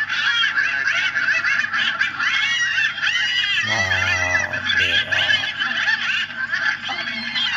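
Many birds calling at once: a dense chatter of short, overlapping high calls that never lets up. A low hum lasts about a second near the middle.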